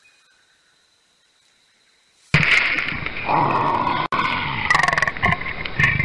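Near silence for about two seconds, then a leopard growling loudly, starting suddenly and going on in rough, uneven bursts as it rears against its reflection in a mirror.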